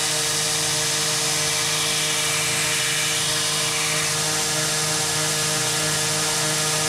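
Belt grinder running with a steady hum while a bearing-steel knife blade is ground against the belt, adding a grinding hiss. About four seconds in the grinding eases as the blade comes off the belt, and the motor runs on.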